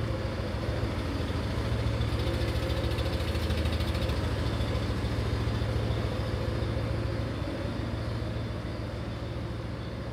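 Nissan forklift's engine running as the forklift drives up and carries off a load, a steady low hum that grows louder a couple of seconds in and fades toward the end as it moves away.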